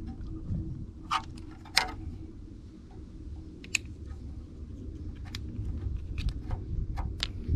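Plastic clips of an electric rear window blind motor's cover clicking and snapping as the cover is prised off by hand: about eight sharp, irregular clicks over a low background rumble.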